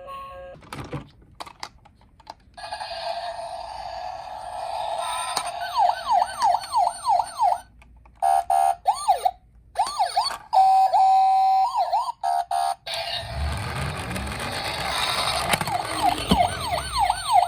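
Electronic sirens of toy police minicars: fast rising-and-falling sweeps, several a second, broken by short gaps as the pattern changes, with a steady two-tone hi-lo stretch partway through. A low rumble runs under the siren in the last few seconds.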